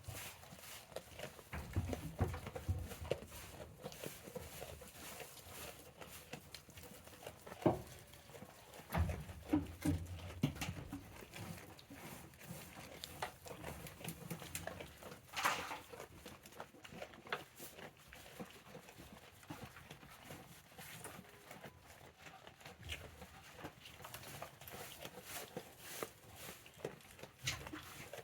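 Goats moving about in a small shed, with scattered hoof clicks and knocks. Clusters of heavier low thumps come a couple of seconds in and again around ten seconds in, and there is a short noisy burst about halfway through.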